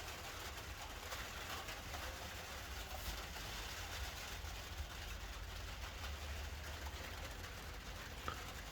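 Low, steady background rumble and hiss with a couple of faint clicks.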